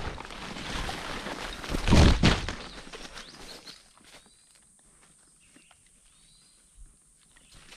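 Footsteps and rustling on a forest trail, with a heavy thump about two seconds in. After about four seconds it falls quiet, leaving faint bird chirps.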